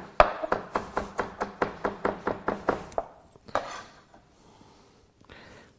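Chef's knife rapidly chopping fresh parsley on a plastic cutting board, about six strokes a second, stopping about three seconds in. A brief scrape follows about half a second later.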